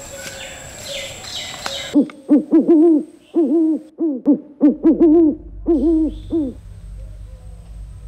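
Forest insect hum with a steady high whine, then, about two seconds in, a run of about a dozen short hooting calls, two or three a second, each rising and falling in pitch. A low rumble comes in beneath the hoots about halfway through and carries on after they stop.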